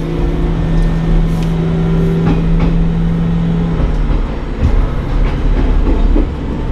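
Noto Railway diesel railcar running on the line: a low rumble and a steady hum that stops about four seconds in, with wheels clicking over rail joints and points.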